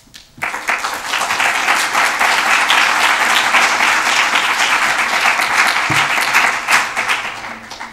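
Audience applauding, starting about half a second in and fading away near the end.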